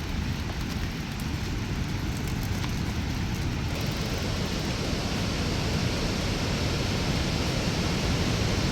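Steady rush of wind on the microphone while riding a bicycle, heaviest in the low end, growing a little louder and brighter about four seconds in.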